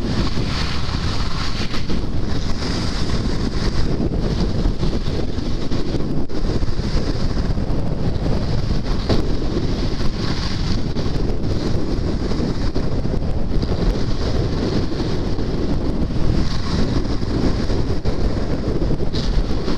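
Wind rushing and buffeting over the microphone of a skier moving downhill, with the hiss of skis sliding on groomed snow swelling and fading every second or two as the turns go.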